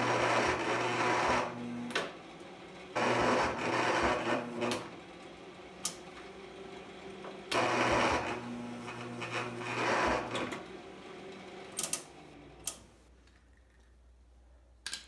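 Electric starter of a 14 hp V-twin Cub Cadet lawn tractor engine cranking in three tries of a couple of seconds each, the engine never firing, then a few clicks. The owner puts the failure down to needing a new battery.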